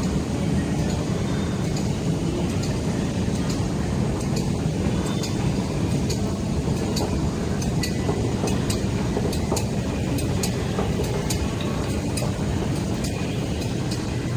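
An escalator running steadily under its rider: a low, even rumble with faint, irregular light clicks.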